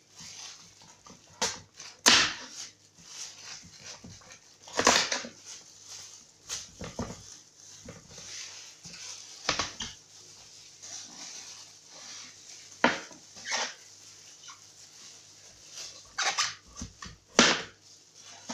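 A kitchen knife shaving the peel off a pumpkin on a plastic cutting board: about ten short, irregular scraping strokes, the loudest about two seconds in and near the end.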